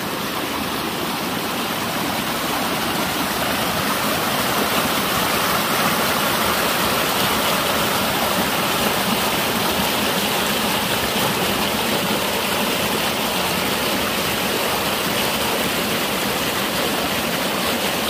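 Mountain stream rushing over rocks in a small cascade: a steady, full hiss of white water, growing a little louder over the first few seconds.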